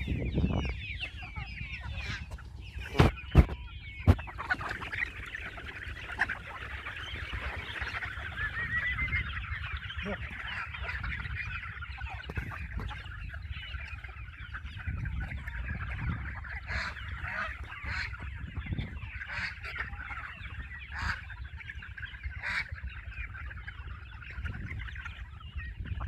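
A large free-range flock of chickens clucking and calling all at once, a dense continuous chatter, with a few sharp knocks about three to four seconds in.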